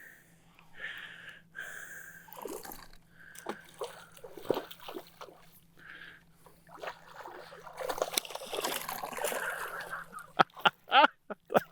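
Water splashing and sloshing in irregular spurts, heaviest in the second half, with a few sharp clicks near the end.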